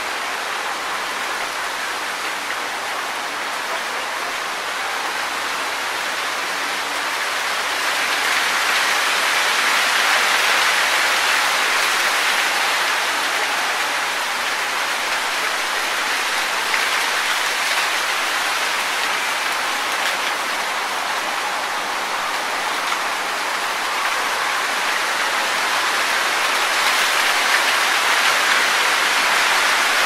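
Wind rustling through tree leaves: a steady, even hiss that swells a little about a third of the way in and again near the end, like passing gusts.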